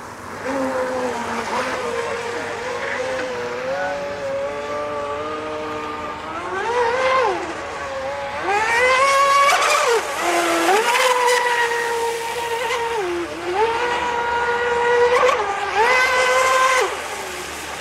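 Radio-controlled Aeromarine Avenger speedboat's motor running at speed, a high whine that holds steady and then climbs sharply in pitch several times as the throttle is opened, loudest about halfway through and again near the end.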